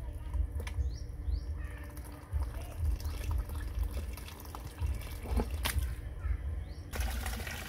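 Water from a garden hose trickling and splashing into a plastic bucket, over a low rumble, with a few short high chirps and a sharp click about five and a half seconds in.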